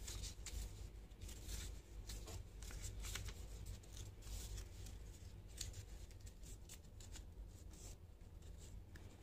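Faint rustling and crinkling of a sheet of origami paper being folded and creased by hand, in short scattered bursts over a low steady hum.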